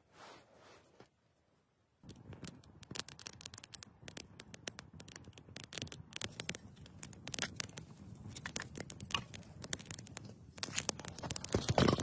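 Small campfire of dry twigs and sticks crackling with dense, irregular snaps and pops, starting about two seconds in. Near the end, louder knocks and rustling as sticks are handled.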